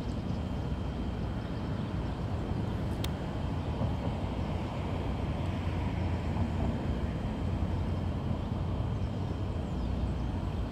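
Steady low rumble of outdoor background noise, with a faint steady high tone and a single brief tick about three seconds in.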